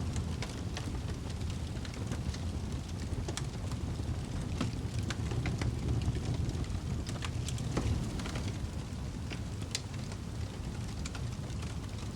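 Wood fire burning in a fireplace: a steady low roar of flames with irregular sharp crackles and pops.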